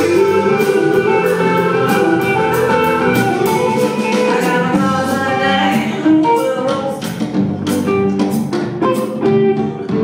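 A live band playing a guitar-led song at a sound check, with singing and a steady strummed rhythm.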